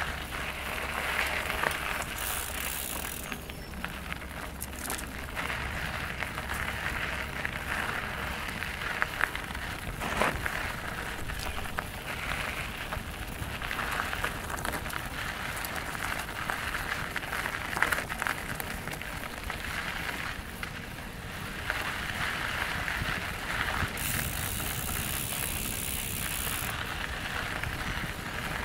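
Mountain bike riding a dirt and rock trail: tyres crunching and rolling over dirt, with a steady rustling noise and many small rattles and clicks from the bike.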